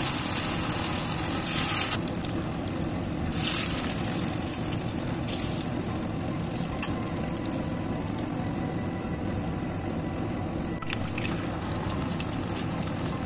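Flour-coated chicken pieces deep-frying in hot oil in a wok: a dense, steady sizzle, louder for the first two seconds and again briefly around three and a half seconds in, then settling to an even level.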